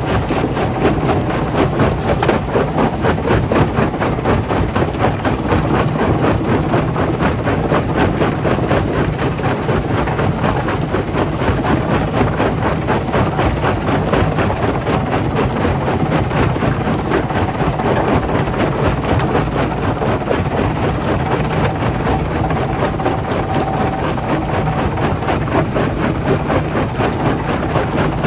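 Heavy machinery at a stone crushing plant running steadily: a dense, continuous clatter over a low engine hum.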